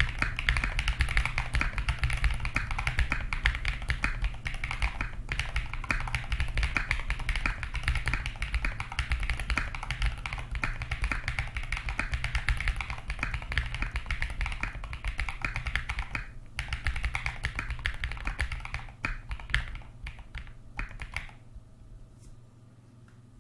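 Typing on a Sam S65v2 mechanical keyboard with Gateron Modern Grey switches and MT3 Serika keycaps: rapid, continuous keystrokes over a low hum, thinning to a few scattered presses and stopping about 21 seconds in.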